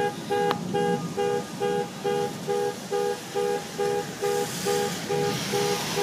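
Ambulance siren beeping in rapid, even pulses of one steady pitch, about three a second. Near the end a hiss of tyres on the wet road swells under it.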